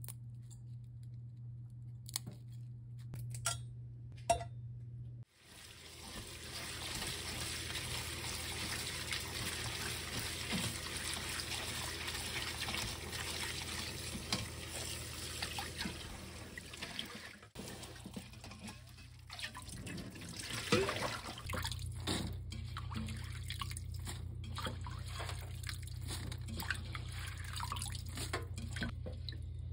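Faint small clicks of hands handling wet hijiki seaweed in a steel bowl. About five seconds in, a kitchen tap starts running steadily onto the hijiki in a stainless mesh strainer in the sink, with splashing and rubbing as the seaweed is washed.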